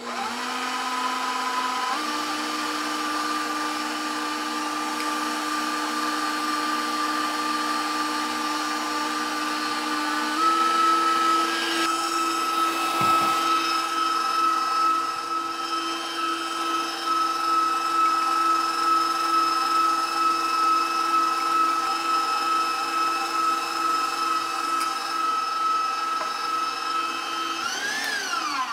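KitchenAid stand mixer's motor whining steadily as its wire whisk whips egg whites for meringue. The whine steps up in pitch about 2 seconds in and again about 10 seconds in, then winds down as the mixer is switched off at the very end.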